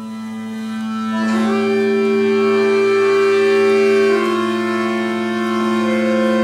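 Accordion playing slow, held chords over a steady low note. It swells in over the first second and changes chord about a second in and again around four seconds in.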